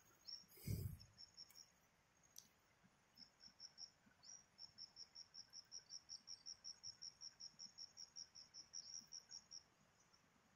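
An insect chirping faintly in a steady run of short, high pulses, about six a second, starting a few seconds in and stopping shortly before the end. A soft low thump comes about a second in.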